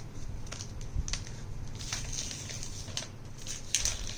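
Scattered light clicks and soft rustling of a new tablet and its packaging being handled, over a low steady hum.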